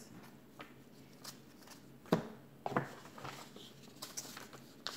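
Paper cards and leaflets being handled and flipped through: a few soft, scattered rustles and clicks, the loudest about two seconds in.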